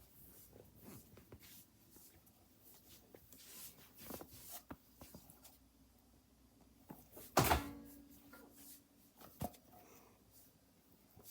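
Soft knocks and clicks of kitchen handling, then a loud thunk of a door shutting about seven and a half seconds in, with a short low ring after it.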